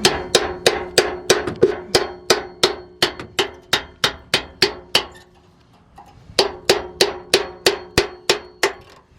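Hammer driving a chisel through a rusted thin stainless-steel exhaust pipe, with steady blows about three a second, each ringing from the metal. The hammering stops for about a second and a half just after the middle, then starts again at the same pace.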